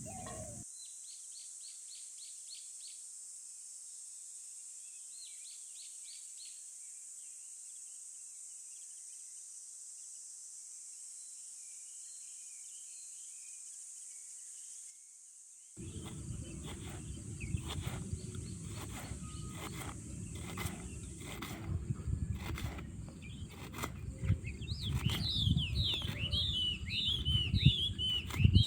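Birds chirping in short rapid trills over a steady, high insect drone. About halfway in, the sound changes to a louder low rumble dotted with crackles and clicks, and more bird calls come in near the end.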